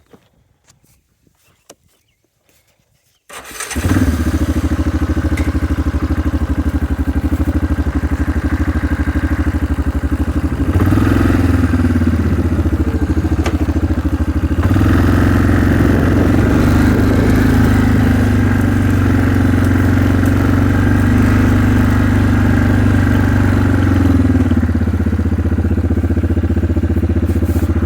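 Quad (ATV) engine starting up about three seconds in and running steadily, growing louder in the middle as it is driven along.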